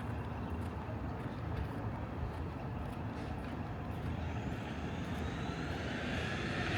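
Steady low rumble of city street traffic, with a faint whine rising in pitch over the last few seconds as a vehicle speeds up.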